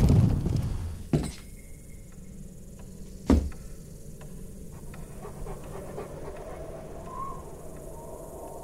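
A loud rumble dies away, then two heavy boot steps thud on a wooden floor about two seconds apart, the second louder. After them comes a faint, steady breathy hiss with a soft brief whistle near the end.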